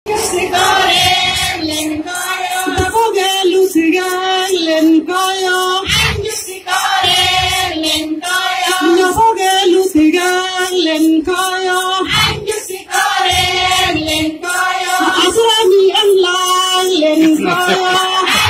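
A large group of voices, mostly women's, singing a Galo ponu song together in unison, short sung phrases repeating in a steady chant-like rhythm.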